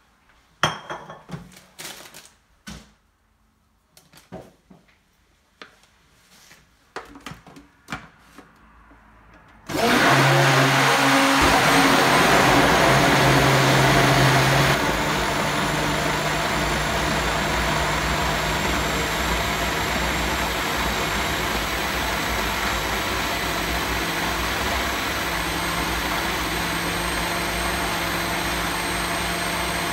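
Countertop blender: a run of clicks and knocks as the jar and lid are handled, then about ten seconds in the motor starts and runs loud, blending kale, banana and yogurt. About five seconds later it steps down a little in level and runs on steadily as the mixture turns smooth.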